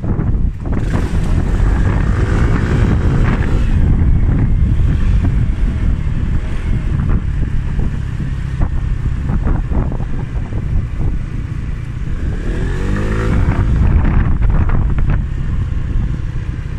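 A moving scooter's engine running under heavy wind buffeting on the microphone. The engine note rises and falls in pitch twice, about two seconds in and again near the end.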